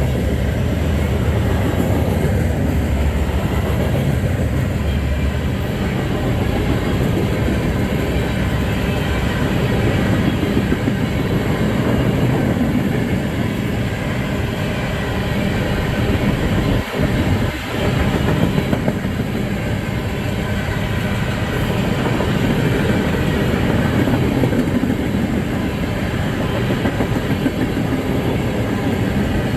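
Freight train cars rolling past close by, a steady heavy rumble with wheels clattering over the rails. The noise dips briefly a little past halfway.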